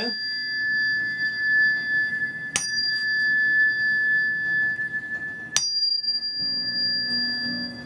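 Tuning fork from an organ-frequency set, the small-intestine fork, struck and left ringing in a high, steady, pure tone. It is struck again about two and a half seconds in and again about five and a half seconds in, each strike renewing the ring.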